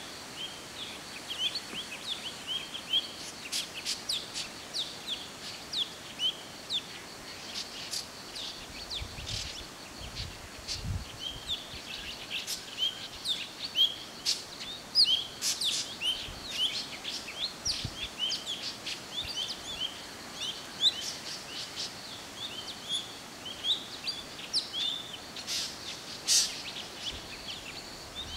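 Several forest birds calling together: a dense, continuous stream of short, high chirps and sharp ticks over a steady faint hiss. A few low thumps come about ten seconds in.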